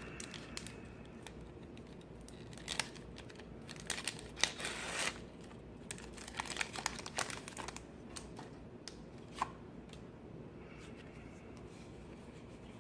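Foil wrapper of a Pokémon trading card booster pack being crinkled and torn open, a scatter of sharp crackles and rustles, thickest about four to five seconds in.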